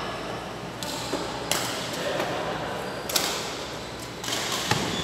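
Badminton rackets striking a shuttlecock in a rally: sharp pops about every second and a half.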